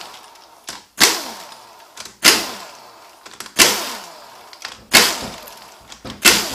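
Cordless impact wrench loosening 10 mm valve body bolts on an automatic transmission, one bolt after another: five short bursts about a second and a half apart, each starting sharply and winding down with a falling whine.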